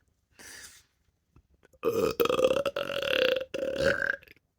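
A long belch of about two and a half seconds, held on a steady pitch and briefly broken twice, produced while practising burp talking.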